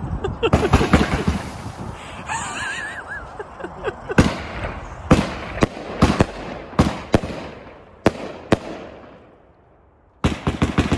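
Real Tree Fireworks' King of the Line consumer firework going off. It starts with a dense stretch of crackling, then comes a string of separate sharp bangs a second or so apart that dies away, and a quick run of cracks comes near the end.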